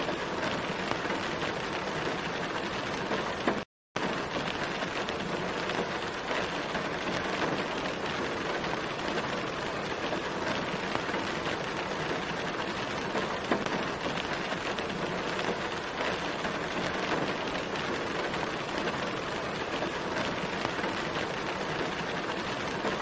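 Steady rain falling on a car's windshield and body, heard from inside the car, with a brief dropout about four seconds in.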